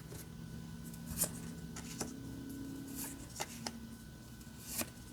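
Trading cards being flipped through by hand: a few soft flicks and swishes of card sliding over card at irregular intervals, over a faint steady hum.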